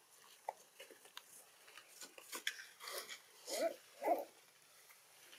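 Baby macaque giving two short calls about half a second apart, a few seconds in, among scattered small clicks and rustles.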